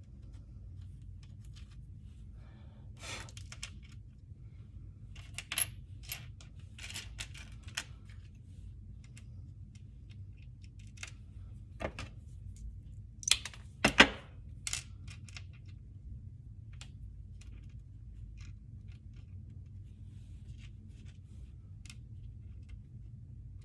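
Light, scattered clicks and clinks of small hard objects being handled on a work surface, with a short cluster of louder ones around the middle, over a low steady hum.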